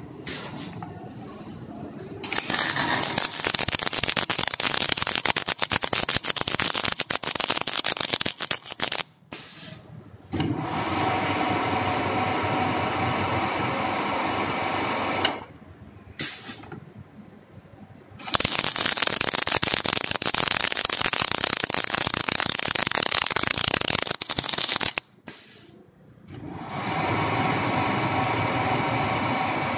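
Welding arc of an automatic square-pipe welding machine, running in four stretches of several seconds each, separated by short quieter pauses. The first and third stretches are a dense crackle; the second and fourth are a steadier buzzing hiss.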